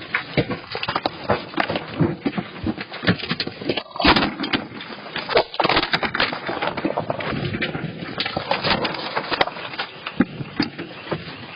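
Many sharp knocks and clatters in quick, irregular succession, with a louder crack about four seconds in: objects and parts of a building rattling and banging during earthquake shaking.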